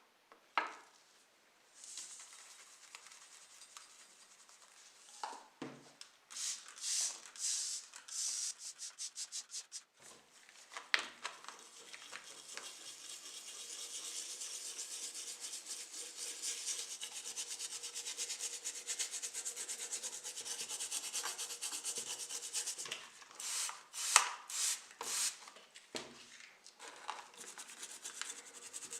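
Hand rubbing with an abrasive on a small model car body, in short scraping strokes: a run of separate strokes, then a long stretch of fast back-and-forth rubbing, with a few sharp knocks from the part being handled.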